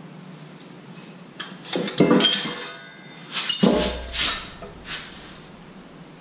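A 6.7 Cummins crankshaft being lifted out of its cast-iron engine block, clanking against the block with ringing metallic clinks. The clinks come in two clusters, about two and four seconds in.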